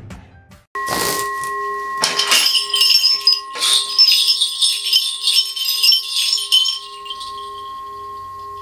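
A struck metal bowl-bell rings with a steady, slowly pulsing tone, and over it a Korean shaman's ritual bell rattle (a cluster of small brass bells on a handle) is shaken in a jingling run of about five seconds, the opening of a shaman's invocation.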